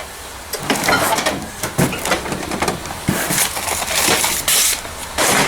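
Discarded junk being shifted and crunched inside a dumpster: an irregular run of crunches, clatters and rustles.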